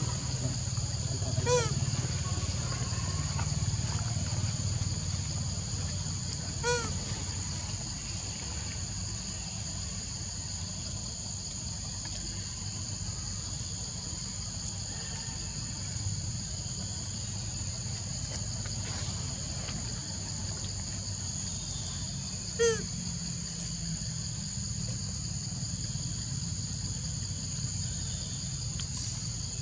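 Steady, high insect drone over a low rumble, broken three times by a short, pitched chirping call: about a second and a half in, near seven seconds, and a little past twenty-two seconds, the last one the loudest.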